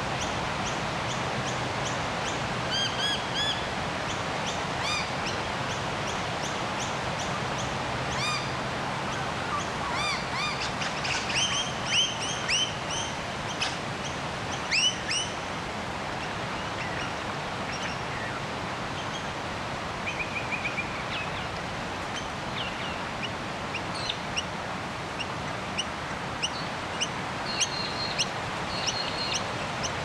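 Several wild birds calling: short repeated chirps and quick rising and falling notes, thickest around the middle. They sound over a steady outdoor hiss.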